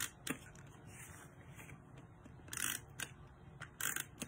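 Tape runner being pressed and pulled across cardstock in several short strokes, each a brief scratchy swipe as a strip of adhesive tape is laid down and snapped off.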